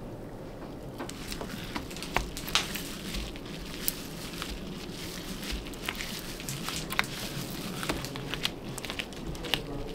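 Rubber-gloved fingers spreading wet epoxy resin over a clock's surface and edge: irregular sticky clicks and smacks over a steady low background noise.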